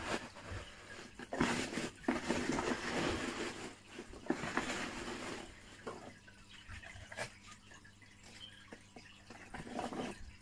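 Rummaging by hand through the packing material and cardboard in a shipping box, a dense rustling and crinkling that runs for about four seconds. It then falls away to a few faint taps and clicks.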